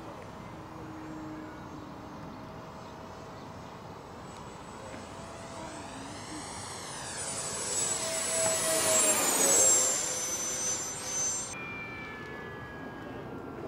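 Electric ducted fan of a Freewing L-39 model jet making a low pass: a steady whoosh and high whine that swells to its loudest about nine to ten seconds in, with a sweeping, phasing sound as it goes by. The whine then drops slightly in pitch and fades.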